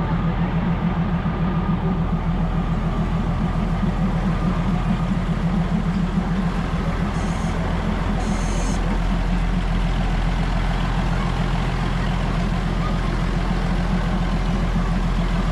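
Large diesel engine, likely the Maeklong line train's, running steadily with a low, fast throb. Two short hisses come a little after halfway through.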